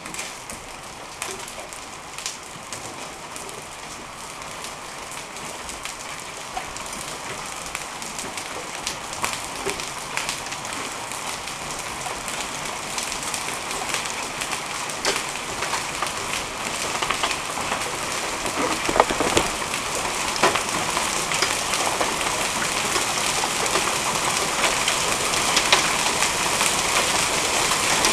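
Gumball-sized hail falling with rain onto wet concrete and asphalt: a dense patter of sharp pellet hits and splashes over a steady hiss. It grows steadily louder as the hail thickens.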